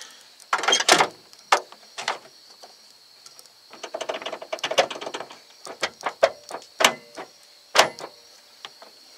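Scattered clicks and clunks, about a dozen at uneven intervals with a busier stretch in the middle, from a 1986 Ford F-150's door as its power door locks are worked.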